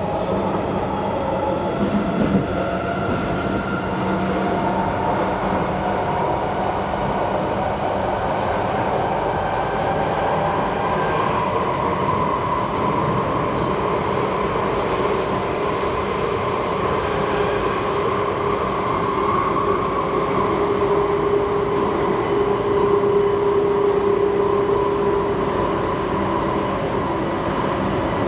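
Interior of an SMRT C751B metro car in motion: a steady rumble of wheels on the track under a whine from the drive that rises in pitch over the first ten seconds or so as the train gathers speed, then holds level.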